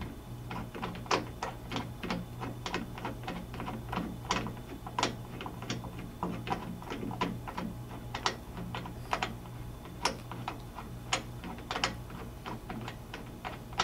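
Light, irregular clicks and taps, a few a second, as a wheel nut is spun off its bolt by hand at the plastic hub of a Honda HRR216 lawn mower's front wheel. A steady low hum runs underneath.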